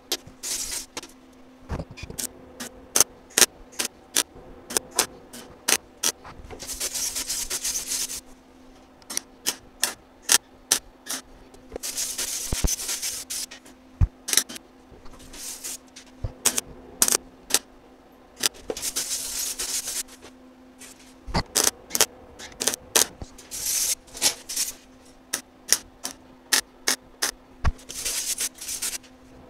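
MIG welder stitch-welding thin sheet-metal body panel: many short, sharp zaps of the arc, with about five longer crackling welds of around a second each. A steady low hum sits under it all.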